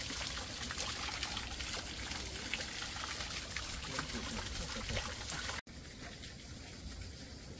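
Water of a small garden cascade trickling and splashing into a fishpond, a steady hiss with small splashes. About five and a half seconds in it cuts off abruptly, leaving a quieter hiss.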